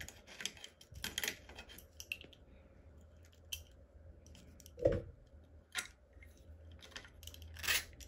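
Small metal clicks and taps of an adjustable wrench and loose nuts on the threaded adjuster of a Ninebot Max electric scooter's rear brake cable as the nuts are undone and the cable is freed, with a louder knock about five seconds in.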